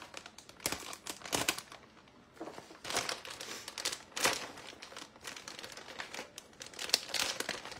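Plastic shredded-cheese bag crinkling as it is pulled and worked open by hand, in several irregular bursts of rustling.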